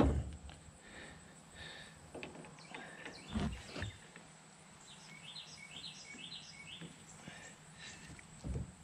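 A few dull knocks and clicks as drive shaft U-joint parts are handled: one at the start, a pair about three and a half seconds in, and one near the end. A bird chirps a quick run of short high notes in the background in the middle.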